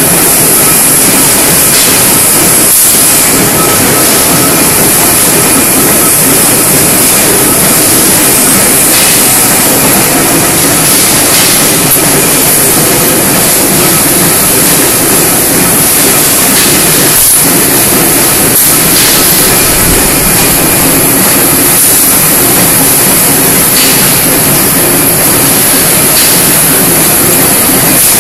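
Steady, loud machine-shop noise with a constant high hiss from an automatic hydraulic and pneumatic square-tube bending machine at work.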